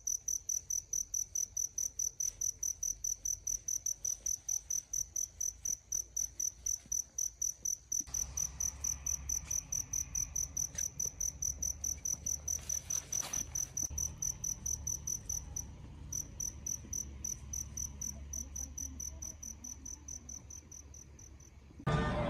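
Chirping insect: a high, evenly pulsed chirp repeating about four or five times a second. About eight seconds in a low rumble joins under it, and near the end the chirping fades and gives way abruptly to louder street noise.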